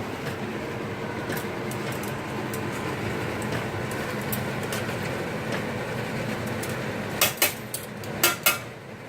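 Kitchenware clinking against a pan a few times with sharp strikes, in two short clusters near the end, over a steady background noise.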